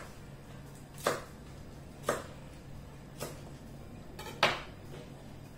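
Kitchen knife coarsely chopping celery and leek on a plastic cutting board: four separate cuts about a second apart, the last the loudest.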